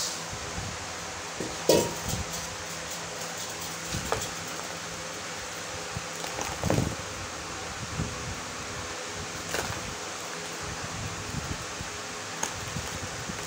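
Dry red dirt crumbled by hand into a plastic basin, close to a clip-on microphone: scattered crackles and crunches, the loudest about two seconds in and another cluster a little before halfway, over a steady hiss.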